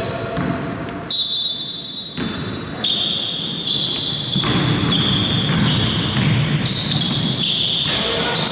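Basketball game on an indoor court: the ball bouncing, with a run of short high squeaks from shoes on the floor.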